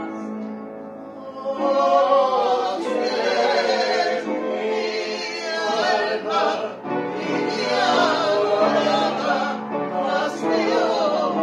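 Upright piano playing a slow song, joined about one and a half seconds in by a small group of voices, women among them, singing together with a wide, wavering vibrato.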